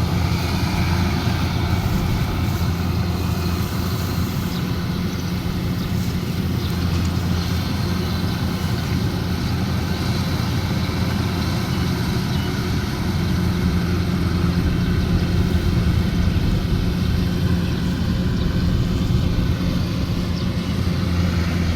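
Kubota DC105X rice combine harvester running steadily, its diesel engine and machinery giving a constant low drone that swells slightly around the middle.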